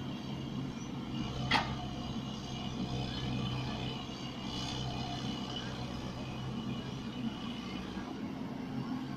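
Excavator's diesel engine running steadily, with one sharp knock about a second and a half in.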